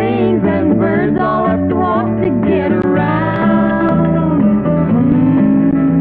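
Country song sung as a duet by a man and a woman over a band with guitar, ending on a long held note.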